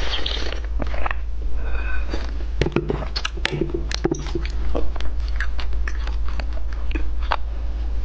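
Close-miked eating sounds: a sip from a glass test tube, then wet chewing of a soft candy with many sharp mouth and lip clicks, over a steady low hum.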